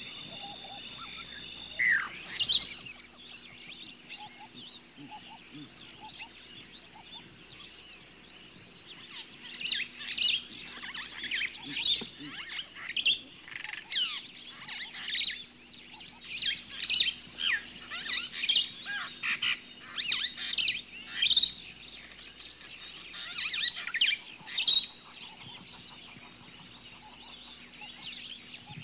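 Songbirds chirping and calling, many short chirps and whistles from several birds over a steady high-pitched background tone. A higher buzzing tone stops about two seconds in.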